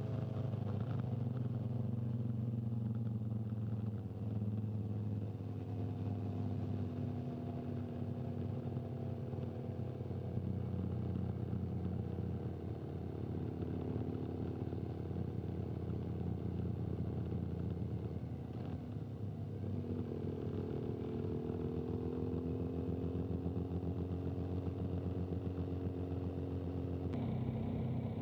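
Camera motorcycle's engine running at a steady low speed, its pitch drifting a little as the throttle changes, with an abrupt change in the sound about a second before the end.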